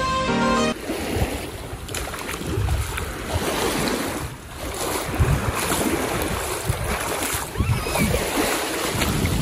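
Small sea waves breaking and washing around a wader's feet in shallow surf, with wind rumbling on the microphone. Background music cuts off about a second in.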